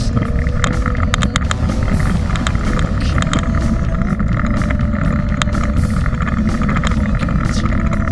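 Wind and ride rumble on a bike-mounted action camera as a mountain bike rolls down a loose, stony dirt track, with frequent sharp clicks and rattles from the bike jolting over the stones.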